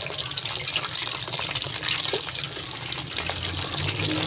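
Batter-coated chicken drumsticks deep-frying in hot oil in a kadai: a steady sizzle with dense fine crackling from the bubbling oil.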